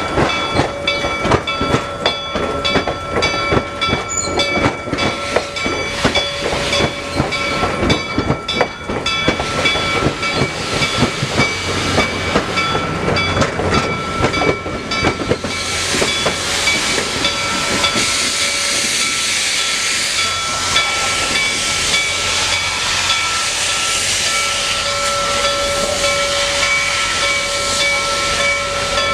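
A train rolls by, its wheels clicking over rail joints. About halfway through, a loud, steady hiss of steam venting from the Reading T1 steam locomotive takes over.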